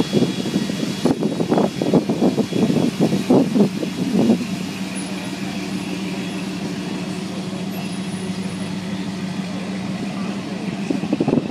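Engine of a customised 1950s Ford F-100 pickup running as the truck drives slowly off, a steady low exhaust note with a run of sharp uneven bursts over the first four seconds.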